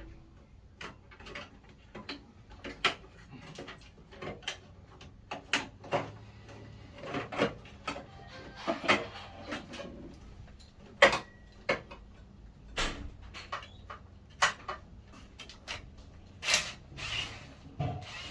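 Irregular clicks and knocks of hard parts being handled, coming singly and in quick clusters, the loudest knock a little past halfway.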